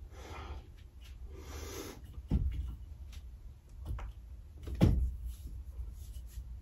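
Dull thumps and knocks of hands, feet and body against a metal dance pole as a person pulls up into an inverted hold: three knocks, the third the loudest.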